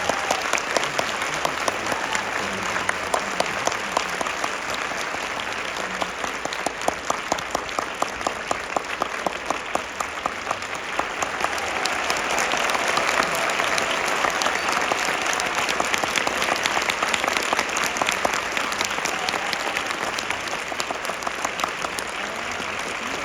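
A large theatre audience applauding with dense, continuous clapping, and a few close claps standing out sharply for several seconds in the middle.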